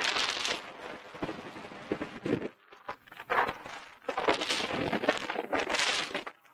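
Snowboards scraping over packed snow as they turn. The rough noise swells and fades with each turn: loud at first, quieter in the middle, and swelling again over the last few seconds.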